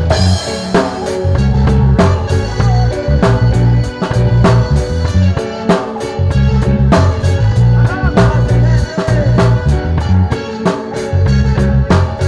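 Music with a steady drum-kit beat, heavy pulsing bass and guitar.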